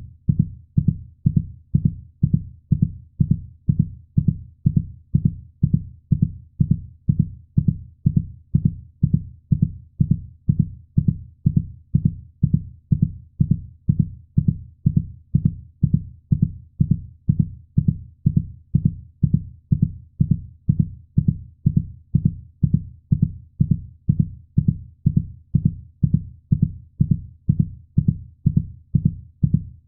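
Steady heartbeat sound: an even run of low, soft thumps at about one and a half beats a second.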